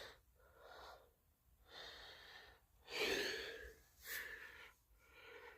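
A man breathing hard, a series of audible in- and out-breaths about one a second, the loudest about three seconds in.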